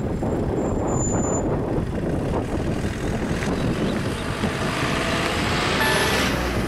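A car driving over the railway level crossing and passing close by, its tyre and engine noise swelling as it goes past. Near the end the crossing's electronic warning bell starts up.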